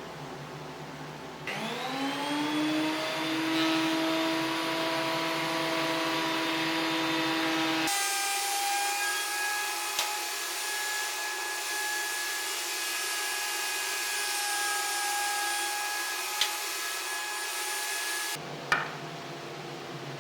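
Wood lathe's electric motor spinning up, its whine climbing in pitch about a second and a half in and then running steady. Around eight seconds the tone changes abruptly to a higher set of pitches, with a few sharp clicks. It stops near the end.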